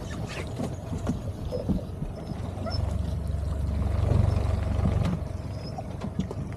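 Jet boat's motor running low and steady, swelling louder for a couple of seconds in the middle and then easing back, with a few small knocks.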